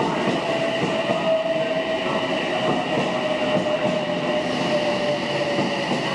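Odakyu electric train moving alongside the platform: a steady rumble of wheels on rail under a whine that sinks slightly in pitch, with fainter high tones above it.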